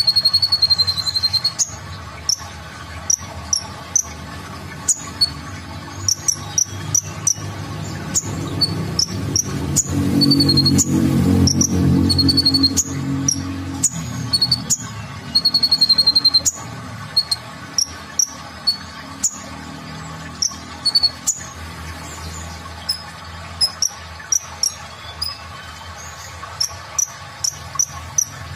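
Male Van Hasselt's sunbird (kolibri ninja) calling: a rapid string of sharp, high-pitched chips with a few short, buzzy trills mixed in. A low rumble swells underneath in the middle.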